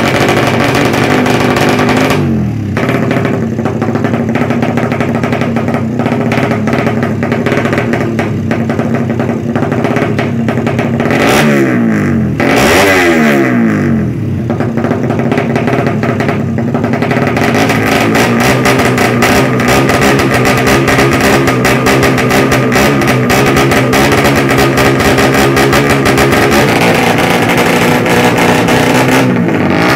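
Ported Suzuki Satria FU 150 four-stroke single, tuned for drag racing, revved hard through its exhaust. The revs drop and climb again about two seconds in and twice around twelve seconds in, then stay high and steady through the second half.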